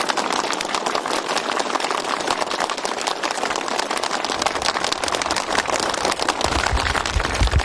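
A crowd applauding: dense, steady clapping, with low thumps joining in near the end.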